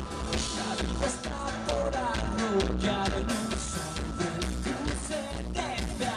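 Live rock band playing through a club PA, with drums and bass keeping a steady beat and a male singer singing into a microphone over them.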